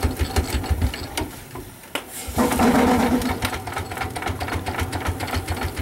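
Steam traction engine, a 5/8-scale Wood Brothers 22/70, running with a rapid, even clatter of about seven or eight strokes a second. It slows almost to a stop about two seconds in, then picks up again, louder and a little faster.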